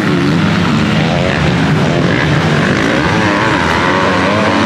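Several MX2 motocross bikes racing on the track, their engines revving up and down in pitch without a break.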